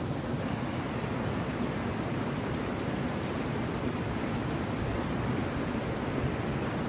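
River water rushing steadily over rocky rapids.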